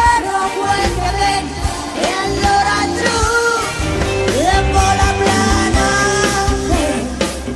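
Rock music: a woman singing held, gliding notes over bass guitar and drums.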